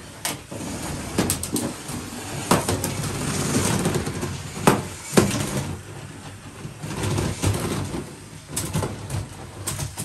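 Lego combat robots fighting: the small electric motors run, and the plastic bricks clatter and knock as the robots ram and shove each other. Two sharp knocks about half a second apart nearly five seconds in are the loudest.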